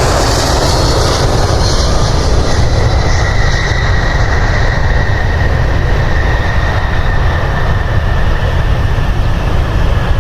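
Jet airliner's engines at close range: a loud, steady rumble with a high whine that slowly falls in pitch.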